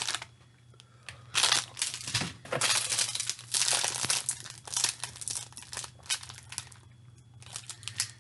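Plastic snack packaging crinkling as it is handled, in irregular bursts, with quiet gaps about a second in and again near the end.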